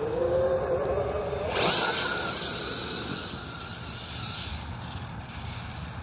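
Electric RC buggy (Losi DBXL-E 2.0 with a Castle Mamba XLX ESC and 2028 sensored brushless motor) driving: a motor whine rising in pitch, then about a second and a half in a sudden louder rush with a higher whine and hiss as it speeds up, fading away over the next few seconds.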